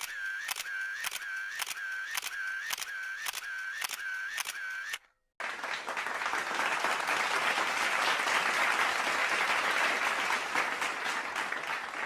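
Two sound effects in a row: a camera shutter firing over and over, a few clicks a second, each with a short tone, for about five seconds; then, after a brief gap, a crowd applauding.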